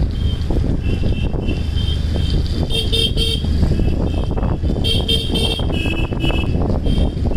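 A vehicle running with a steady low rumble, with short high-pitched tones coming and going, strongest about three and five seconds in.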